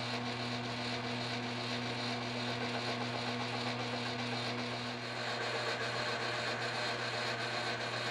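Metal lathe running with a steady hum while turning a part between centers on a mandrel; about five seconds in a higher tone joins in.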